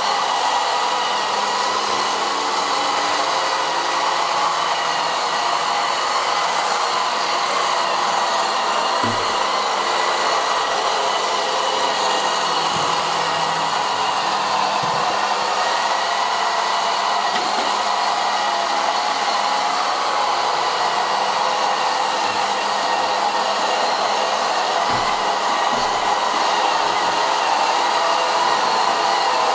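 Vileda robotic vacuum cleaner running, with a steady whirring motor and fan about as loud as an ordinary vacuum cleaner. A few dull knocks sound at scattered moments.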